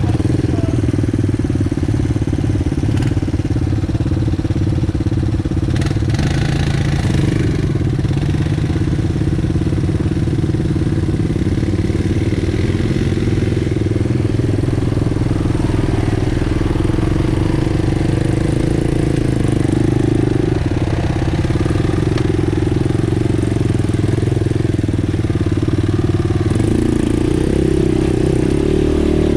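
ATV engine running steadily at low trail speed, with a brief rush of noise about six seconds in and a slight rise in revs near the end.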